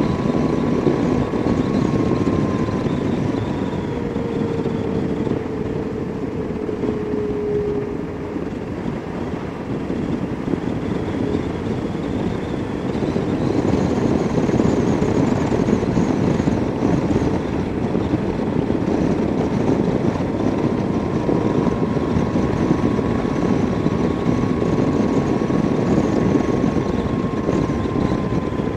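Motorcycle cruising at road speed: a steady rush of wind and engine noise, with a faint whine that drifts slightly up and down in pitch.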